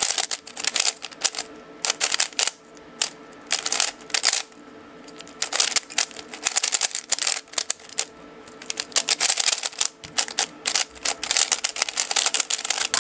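A Moyu Weilong 3x3 speedcube, fresh out of the box at factory tensions, being turned fast during a solve. It makes bursts of rapid plastic clacking, broken by short pauses.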